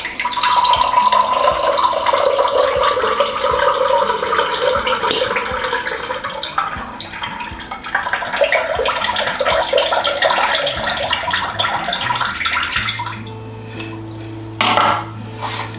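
Coconut water trickling and splashing from a freshly cracked coconut into a measuring cup, the flow thinning out about twelve seconds in.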